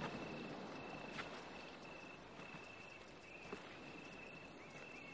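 Faint crickets chirping in long, steady trills, broken by short gaps, with two soft clicks about a second in and halfway through.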